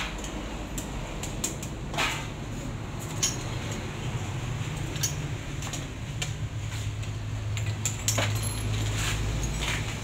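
Hand tools clinking and tapping on metal parts in a car's engine bay: several short, sharp clicks over a steady low hum.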